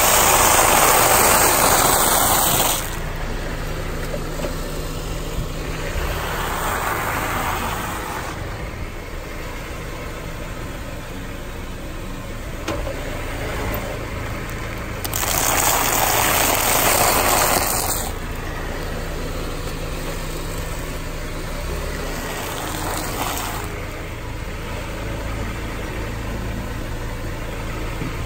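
A car tyre rolls over piles of dry potato and tortilla chips and crushes them with a loud crackling crunch, once at the start and again about fifteen seconds in. Softer crunches come in between, over the car's engine idling steadily.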